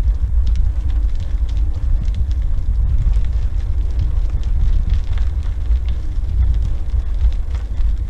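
Wind buffeting the microphone in a deep, steady rumble while a unicycle is ridden up a stony trail, with faint scattered clicks of the tyre on the stones.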